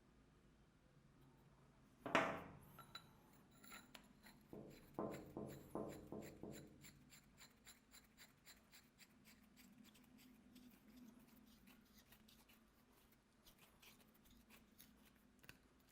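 Workshop handling noises: a sharp metallic clink that rings briefly about two seconds in, a few duller knocks a few seconds later, then a long run of light taps and clicks.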